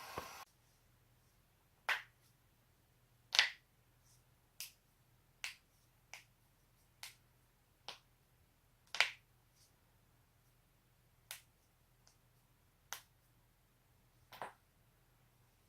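A person's joints cracking: about a dozen sharp single pops at irregular intervals, one to two seconds apart, with a quiet gap between each.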